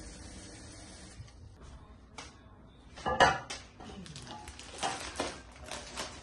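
Dishes and utensils clinking and knocking during breakfast preparation, in irregular knocks with the loudest about three seconds in.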